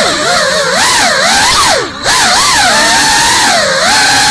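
GEPRC Cinelog 35 cinewhoop's four brushless motors and ducted propellers whining, the pitch swooping up and down quickly as the throttle changes. About halfway through, the throttle drops briefly, so the whine falls low and quieter, then climbs back.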